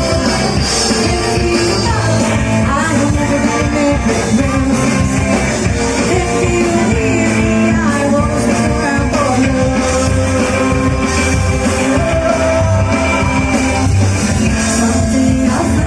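Rock band playing live with a singer: a sung melody over a steady full band.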